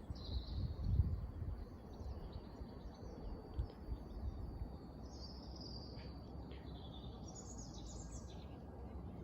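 Birds chirping and trilling over a steady low outdoor rumble, with a louder rush in the rumble about a second in.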